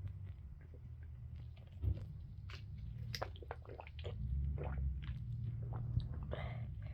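Gurgling of a stomach swollen with water: small wet squishes and pops scattered over a low rumble that grows stronger about two-thirds of the way through, with a short hiss near the end.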